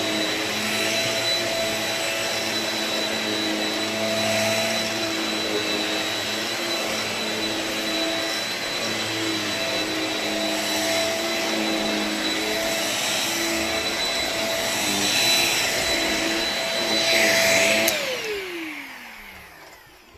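Shark Rocket Ultra-Light corded stick vacuum running with a steady high whine. Near the end it is switched off and the motor winds down in a falling tone.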